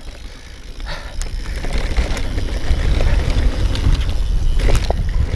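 Wind buffeting the camera microphone and the rumble of a mountain bike's tyres rolling fast over grass, getting louder as the bike picks up speed, with a couple of sharp knocks from the bike about a second in and near the end.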